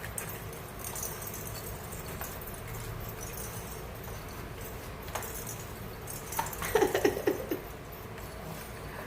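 A cat vocalising in a short run of pitched, wavering chirps lasting about a second, two-thirds of the way in, over a faint steady background hum with a few light clicks.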